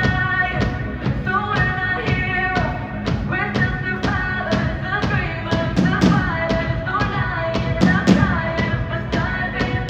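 Pop song with a steady drum beat, about two hits a second, and a melody line over it.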